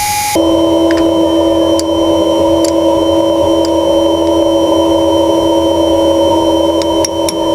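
Steady mechanical hum of a running motor, several steady tones together, starting abruptly about half a second in, with a few light clicks over it.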